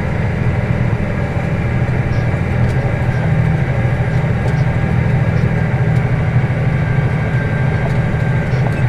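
Claas Axion tractor's diesel engine running steadily under load while pulling a disc harrow, heard from inside the cab as a steady low drone. A faint high whine rides over it and drops slightly in pitch near the end.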